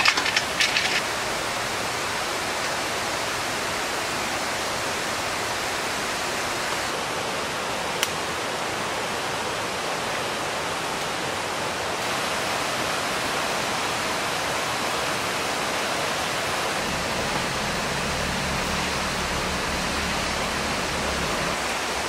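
A steady, even rushing noise like running water. In the first second, ice and drink cans clatter in a cooler as a bottle is pulled out, and a faint low hum comes in for a few seconds near the end.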